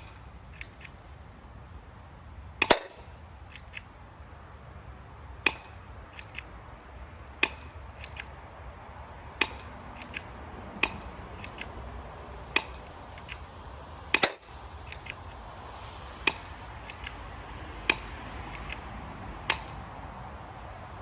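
Ukarms P2003 spring-powered airsoft pistol firing about eleven single shots, one every couple of seconds, each a sharp snap. Fainter clicks fall between the shots.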